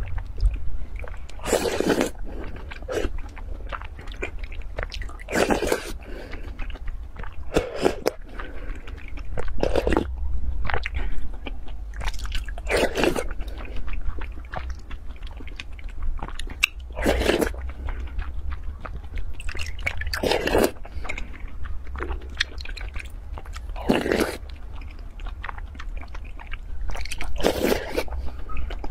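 Close-miked eating of spoonfuls of black rice in a milky soup: a loud slurp or bite every two to four seconds, with quieter chewing between, over a steady low hum.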